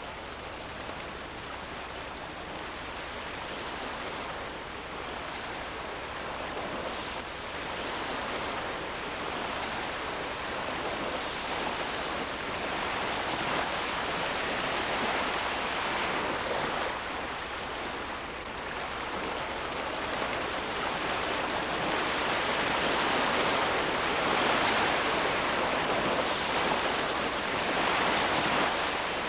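Steady rush of running water, a noisy hiss that swells and eases slowly and grows louder in the second half.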